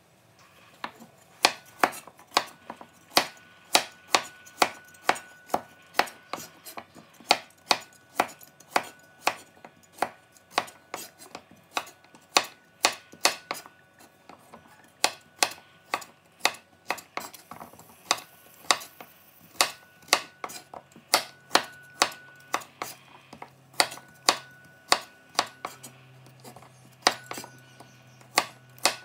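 Kitchen knife chopping carrots on a wooden cutting board: steady, sharp strokes at about two a second.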